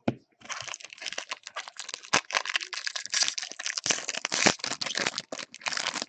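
Plastic wrapper of a baseball card jumbo pack being torn open and crinkled in the hands, a dense crackle of many small clicks that starts about half a second in.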